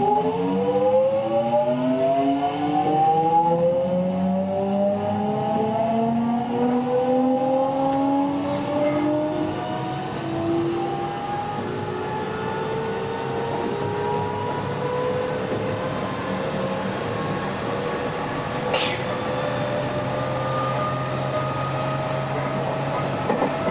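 Toshiba GTO-VVVF inverter and traction motors of a JR West 207 series 1000-subseries motor car, whining in several tones that rise together as the train accelerates, with two short sharp clicks along the way. The uploader finds this car's inverter modulation sound unusually odd compared with other cars of the class.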